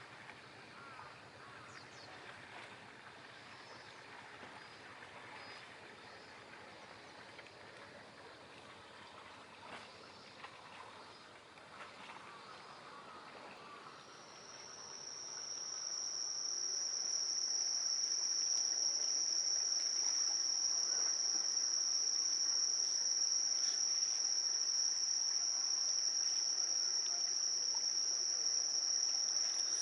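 A faint wash of harbour water at first. About halfway in, an insect's continuous high-pitched song swells up and then holds steady and loud.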